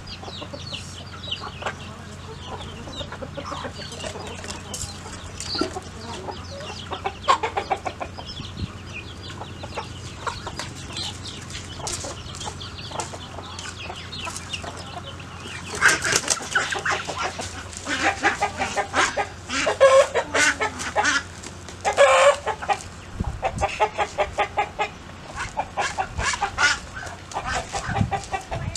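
Domestic chickens clucking. About halfway through, the calls become much louder and come in fast runs of short, harsh notes.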